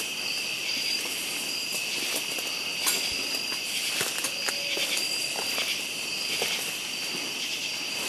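A steady chorus of night-singing insects, with irregular footsteps and brush rustling from someone walking through the woods.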